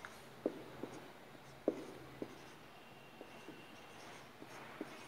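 Marker pen writing on a whiteboard: a string of short, faint squeaks and taps as the letters are stroked out.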